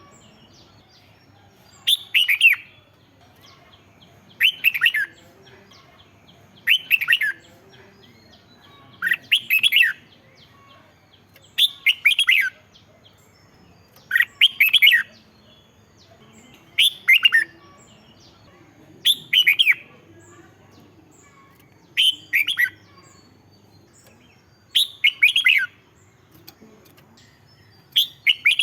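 Red-whiskered bulbul singing, repeating a short phrase of several quick falling notes about every two and a half seconds.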